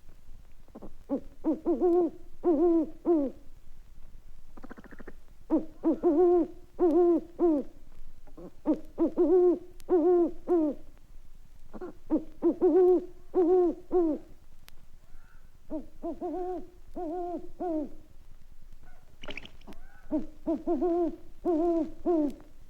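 Owl hooting in runs of four or five quick, wavering hoots, about two a second, with short pauses between runs, and a brief higher-pitched cluck near the end. This is a 1960s sound-effects record of owl hoots and clucks.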